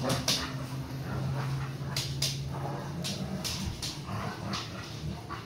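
A Saint Bernard and a Bernese Mountain Dog play-fighting: low growling and dog vocalizing, with a scatter of sharp clicks and knocks as they grapple.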